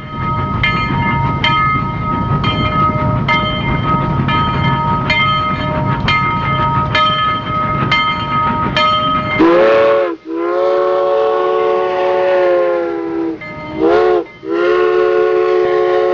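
Train running with a steady rumble and a regular clack, then sounding its air horn about halfway through: a short toot, a long blast, another short toot and a second long blast.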